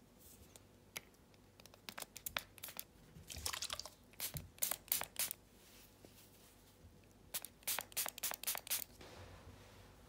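Small pump-spray bottle of silvervine (matatabi) spray spritzing onto a fabric cat toy: several runs of quick, short spritzes with brief pauses between.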